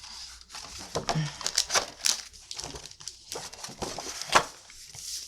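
Paper pages and dividers of a planner being turned and handled: a quick run of crisp rustles and flicks.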